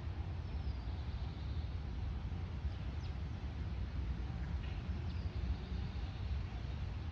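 Park ambience: a steady low rumble with faint bird chirps a few times over it.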